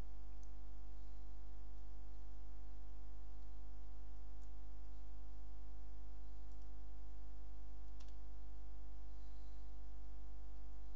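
Steady electrical mains hum with a stack of buzzing overtones, over which come a few faint clicks, the sharpest about eight seconds in.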